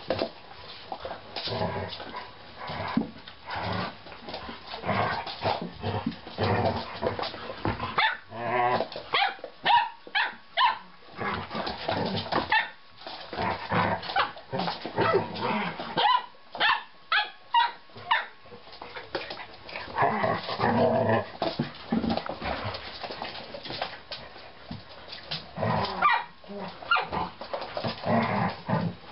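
Flat-coated retriever puppies and an adult flat-coated retriever at play, giving many short barks, yips and growls. The noise is busiest from about eight to eighteen seconds in.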